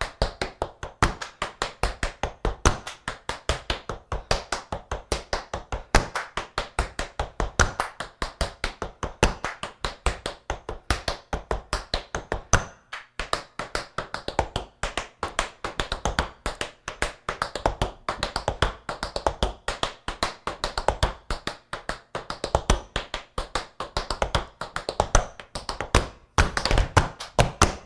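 Metal taps of tap shoes striking a wooden floor in a long, fast run of shuffle steps danced back to back, many quick rhythmic clicks, with a brief pause about halfway through.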